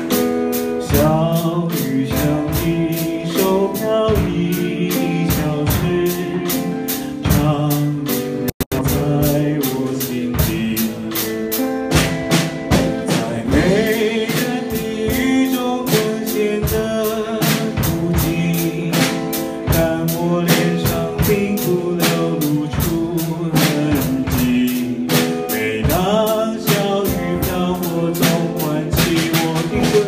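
Live band music: acoustic guitar chords and a man singing over drum kits keeping a steady beat. The sound cuts out for an instant about eight and a half seconds in.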